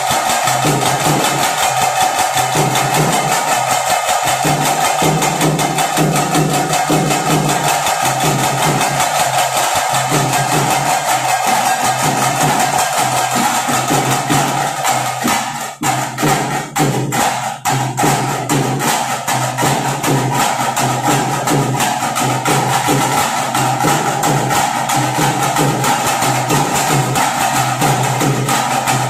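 Loud, fast percussion music, drums beaten in a dense steady rhythm with a high sustained tone held through it; the beat thins out briefly about halfway through, then picks up again.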